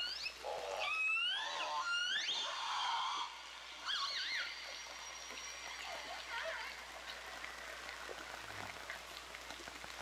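Orca calls: several rising, pitched calls with overtones, loudest in the first few seconds and fainter after about four seconds, over a steady hiss.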